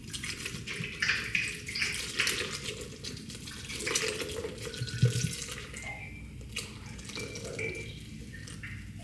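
Water running and splashing, with scattered light clinks and knocks.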